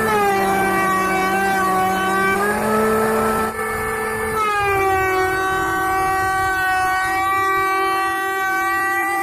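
Kyuho K282 electric hand planer, mounted upside down as a jointer, running with a steady whine while a board is fed across its cutter. The pitch sags as the cutter bites, rises again about two and a half seconds in, then drops at about four seconds and stays lower as the next stretch of wood is planed.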